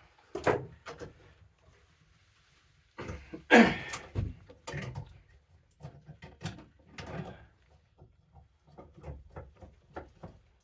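Irregular knocks, clicks and clanks of hand tools on metal while a seized ice auger part is worked loose. About three and a half seconds in comes one louder sound that falls in pitch.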